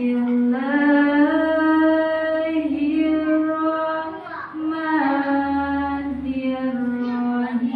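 A young reciter's voice in melodic Quran recitation, holding long ornamented notes. There is a short break for breath about four seconds in.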